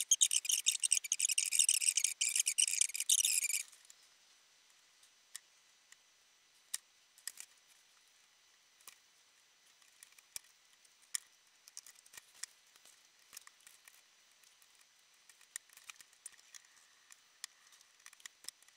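A rapid, high-pitched rasping chatter for the first three and a half seconds. Then scattered faint clicks and taps of small kit parts and tools being handled during the RC truck chassis assembly.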